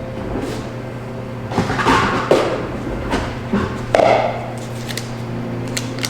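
Kitchen handling sounds: a few knocks, rustles and clinks of containers and utensils over a steady low electrical hum.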